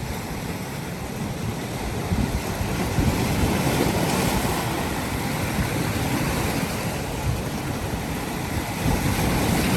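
Ocean surf washing onto the shore, with wind buffeting the microphone; the surf grows louder about three seconds in.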